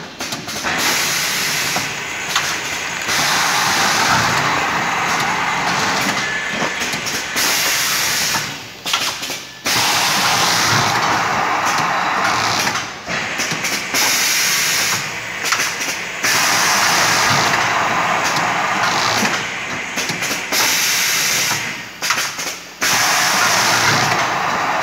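Automatic atta (wheat flour) bag-packing machine running: a loud, steady hissing noise in stretches of a few seconds, each cut off briefly before the next cycle begins.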